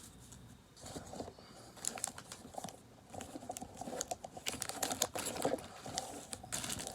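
Pokémon trading cards being handled, with irregular light clicks and rustling.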